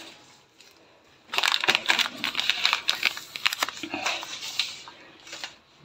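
Plastic food packaging crinkling and rustling as it is handled, with small crackles and taps, starting about a second in and stopping shortly before the end.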